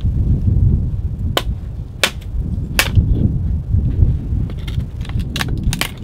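A dry stick cracking and splitting as it is broken by hand and foot: separate sharp cracks about a second and a half, two seconds and three seconds in, then a quick cluster near the end. Underneath runs a steady low rumble of wind on the microphone.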